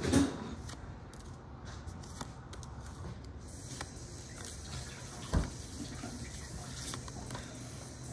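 Handling of trading cards and booster-pack wrappers: faint rustles and clicks, with a thump right at the start and a louder low thump about five and a half seconds in.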